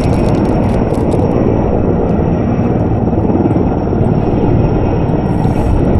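Helicopter flying close by: a loud, steady drone.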